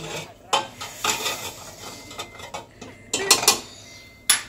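Irregular clinking and rattling knocks inside a moving car's cabin, a handful of sharp clatters with a loud one near the end.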